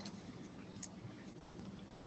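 Faint room tone: a low, steady background hiss from a call microphone, with one small click a little under a second in.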